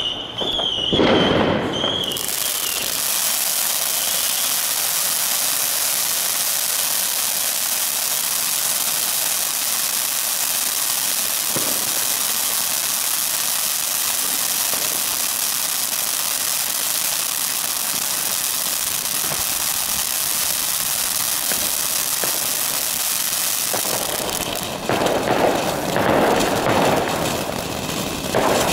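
Panda Feuerwerk 'Frozen' triangle firework battery going off. About two seconds in, a steady loud hiss of spraying sparks starts and runs for some twenty seconds. Near the end, louder irregular crackling and popping takes over.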